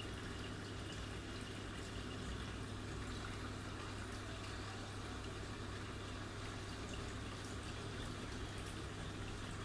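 Aquarium aeration: a steady low hum with an even water-like hiss and bubbling, unchanging throughout.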